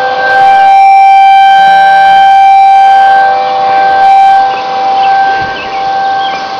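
Outdoor tornado warning sirens wailing at one steady pitch, sounding a tornado warning. The sound swells and fades as it goes and is harshly distorted through the small camera's microphone.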